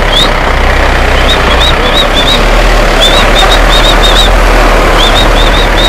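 Loaded truck under way, its engine running low beneath heavy road and wind noise, with short high squeaks that come again and again in little groups.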